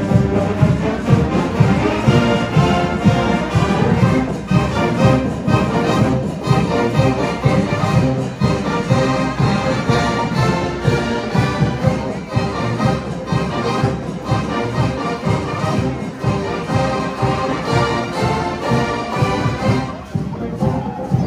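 A large marching band playing live, with brass carrying the tune over a steady drum beat.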